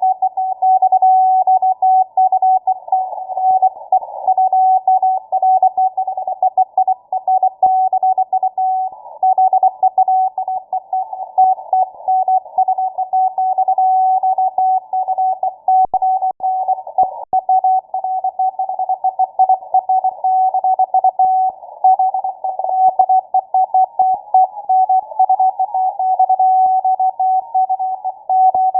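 Morse code (CW) on shortwave, received through a WebSDR: a single tone keyed on and off in quick dots and dashes, heard inside a narrow band of hiss. A fainter second signal, lower in pitch, sits under it through the middle.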